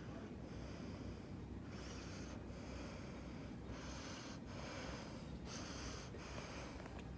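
A person breathing close to the microphone, a string of short hissy breaths in and out roughly every second, over a steady low hum.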